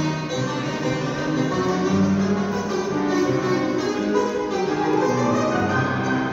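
Azerbaijani tar playing a plucked melody with upright piano accompaniment.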